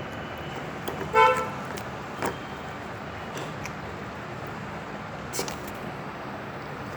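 A baby hiccupping: short, sharp hics a few seconds apart over a steady background hiss. About a second in comes a brief high toot, the loudest sound here.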